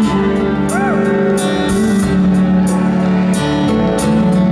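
Live band playing the instrumental passage of a slow ballad: sustained chords with regular soft percussion hits. About a second in there is a brief rising-and-falling note.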